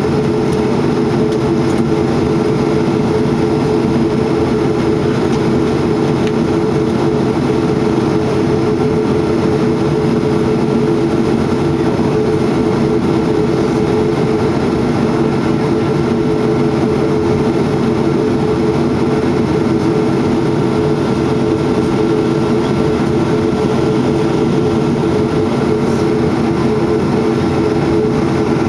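Boeing 737-300's CFM56-3 jet engines heard from inside the passenger cabin: a loud, steady drone with several held low tones and no change in power.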